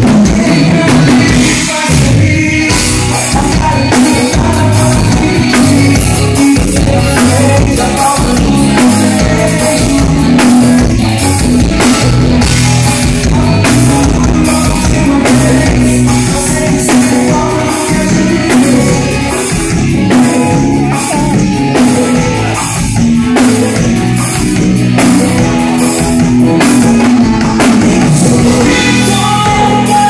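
Live band playing at full volume during a sound check: drum kit, congas, accordion and electric bass together, with a steady beat.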